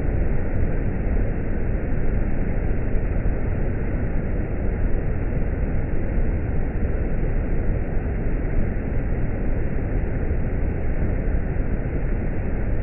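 Loud, steady rush of Box Canyon Falls, an 85-foot waterfall pouring into a narrow quartzite canyon, heard muffled with no treble.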